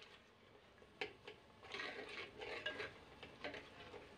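Metal spoon stirring a thick mashed turnip-and-spinach curry in a clay pot, scraping and knocking against the pot several times, with one sharp click about a second in. This is the final fry (bhuna) of the dish.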